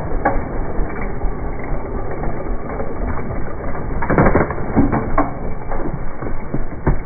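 Dirt bike and rider crashing through bushes and small trees: branches snapping and crunching, loudest in a cluster about four to five seconds in, over a steady low noise.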